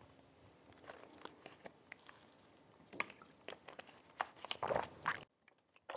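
Faint, irregular small clicks and rustles in a quiet room over a low background hiss. The hiss cuts off abruptly about five seconds in.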